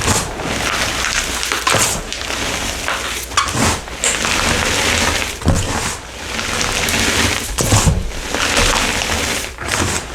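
Crumbly purple powder block crushed and crumbled by hand into dust. Dry, crunchy crackling comes in repeated squeezes about every two seconds, with a few sharper snaps.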